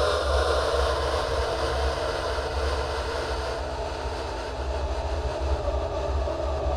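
A dense, steady rumbling noise with a deep hum underneath, with no distinct separate events.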